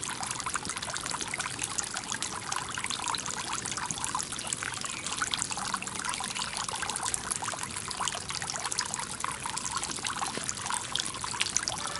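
Stoneware jar fountain: a thin stream of water pouring from the mouth of a tall jar and splashing steadily into the water below, a continuous trickling patter.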